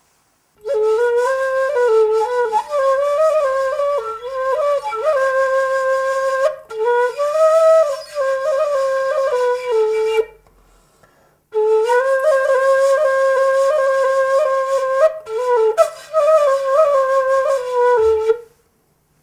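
An end-blown flute playing a simple melody of wavering and held notes, in phrases with short breaks between them and a longer pause about ten seconds in.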